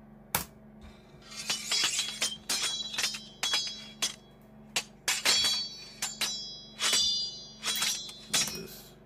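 Glass shattering sound effects: a quick run of about a dozen smashing crashes, roughly two a second, each followed by ringing, tinkling shards, after a single sharp click.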